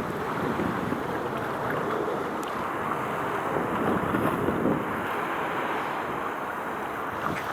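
Wind buffeting the microphone over a steady wash of sea water, rising and falling in slow surges.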